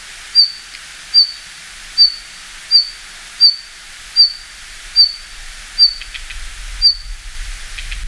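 Red-flanked bluetail calling: a series of about ten short, high single call notes, evenly spaced a little under a second apart, over a steady background hiss.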